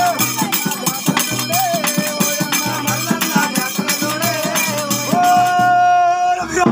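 Music with fast, dense percussion and a melody line that holds long notes, one long held note starting about five seconds in.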